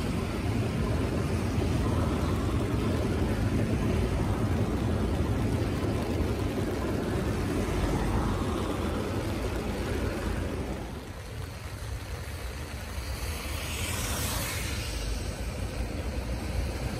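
Electric commuter train running across a steel truss railway bridge, a steady rumble that drops away about eleven seconds in, followed by a brighter hiss.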